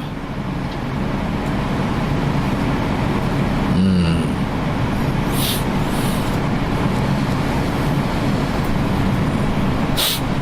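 A large vehicle engine running steadily, with a short hiss about five and a half seconds in.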